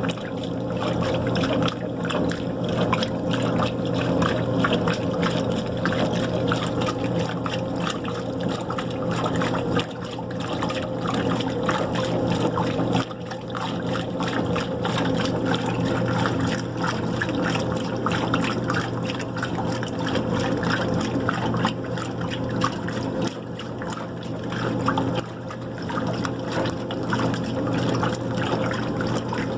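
White Westinghouse washing machine running: water sloshing and trickling inside the drum over a steady motor hum.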